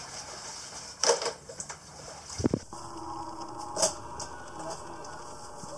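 Bamboo poles knocking against one another and the rim of a dye pot as skeins of dyed yarn are lifted and turned: a few scattered wooden clacks, with one duller thump about halfway through.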